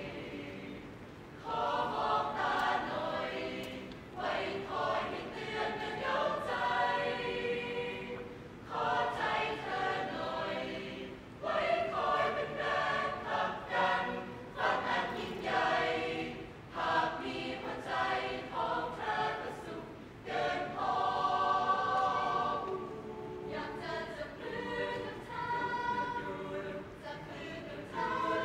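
Mixed youth choir of girls and boys singing a cappella under a conductor, in sung phrases with short breaths between them.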